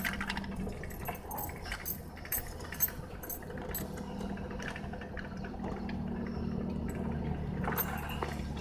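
Chevrolet K20 Suburban's engine running at low, steady revs as the truck crawls along a rough grassy track, heard from inside the cab, with scattered light clicks and jangling rattles.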